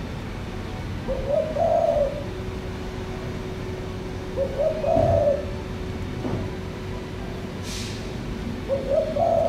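Spotted dove cooing: three low phrases, about three and a half seconds apart.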